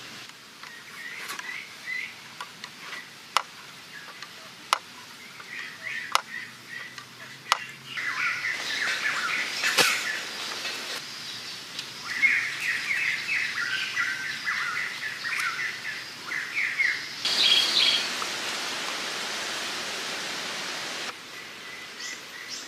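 Birds chirping on and off over a steady background hiss, with several sharp clicks during the first ten seconds or so.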